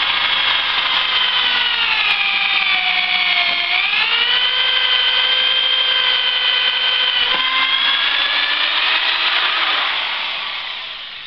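Corded electric drill with a 1/4-inch bit boring through two clamped wooden boards. Its motor whine dips in pitch about three seconds in as the bit bites under load, then picks back up, and fades near the end as the drill is lifted out of the hole.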